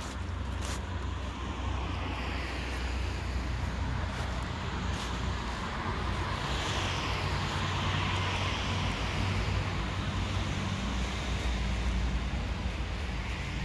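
A car passing on a street: its tyre noise swells from about six seconds in and fades by about ten seconds, over a steady low rumble of traffic.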